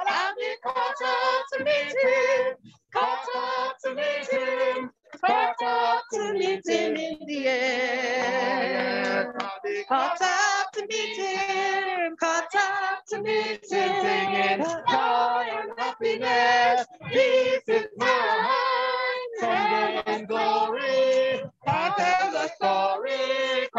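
A group of voices singing a hymn, women's voices the most prominent, with the sound cutting out briefly a few times.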